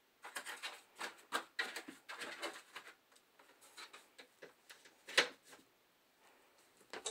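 Plastic handling noises from loading a peritoneal dialysis cycler: clear PVC tubing and plastic parts rustling and clicking as the tubing is pressed into the machine's guides, busiest in the first few seconds, with one sharper click about five seconds in.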